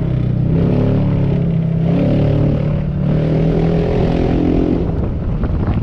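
An engine running steadily with a loud, even hum.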